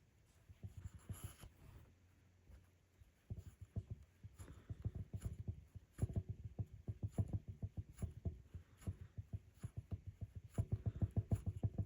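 Rug hook pushing through the backing and pulling up loops of wool: rapid soft ticks, several a second, with a short pause about two seconds in.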